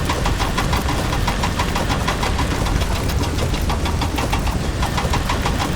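Vehicle engine running steadily: a low rumble with a rapid, even ticking of roughly eight to ten beats a second.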